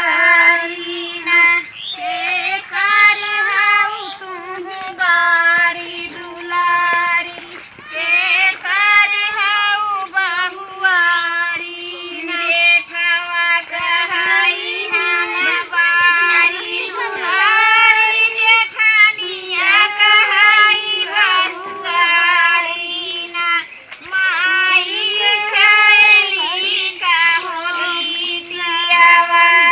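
Village women singing a Kajri folk song, a rice-transplanting work song, in high voices with long wavering phrases and no instruments.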